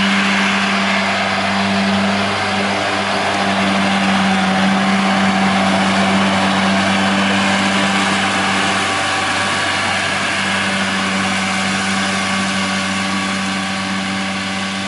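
John Deere 6145R tractor's six-cylinder diesel running steadily under load while its KUHN rear disc mower spins, cutting grass. It makes a steady drone with several constant tones and fades gradually over the last few seconds as it moves away.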